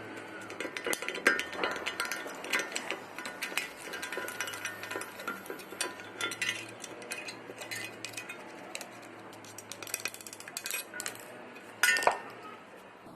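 Small metal clicks and clinks as the wheel bearing's retaining circlip is worked out of the steering knuckle with a hand tool, steel tapping and scraping on steel, with a louder ringing clink near the end.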